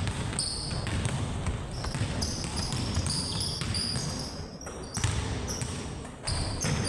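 Basketball being dribbled and bounced on a court floor during play, with repeated short high-pitched squeaks.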